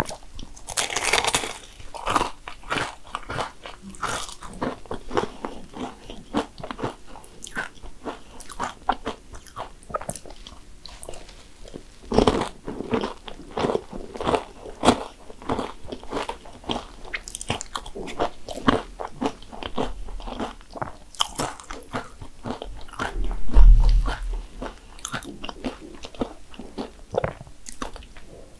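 Close-up crunching bites and chewing of cannoli, their crisp fried pastry shells crackling in many irregular crunches. A loud, dull low thump stands out late on.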